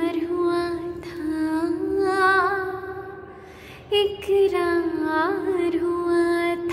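A woman singing solo, holding long notes with a wavering, vibrato pitch. One phrase fades out about three seconds in, and a new one begins about a second later.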